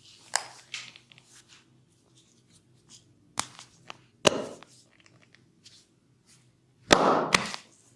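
Massage sounds of hands working bare skin: a handful of sharp slaps or cracks, some followed by brief rubbing, with the loudest two close together near the end.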